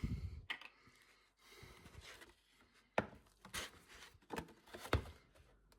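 Hands handling card packaging and trading cards: a dull thump at the start, then soft rustling and a handful of sharp clicks and taps as pieces are picked up and set down.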